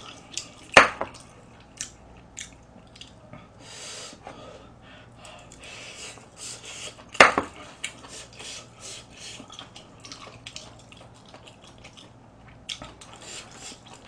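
A metal spoon and chopsticks clinking and scraping against a metal pot and bowl during a meal, with small eating noises in between. Two sharp, loud clinks stand out, one about a second in and one about seven seconds in.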